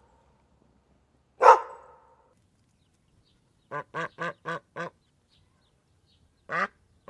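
Animal calls: one loud call, then a quick run of five short calls about four a second, then another single call near the end.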